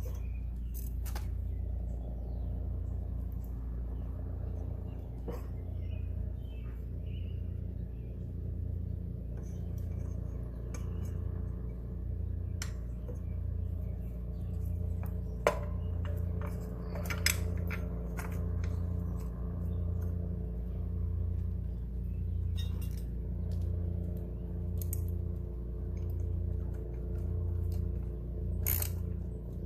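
Scattered metallic clinks and clicks of hand tools and metal parts being handled on a push mower's belt drive, two of them sharper around the middle, over a steady low hum that pulses about once a second.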